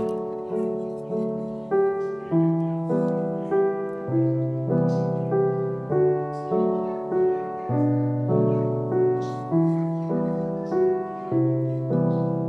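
Background piano music: a gentle melody with a new note struck roughly every half second to second.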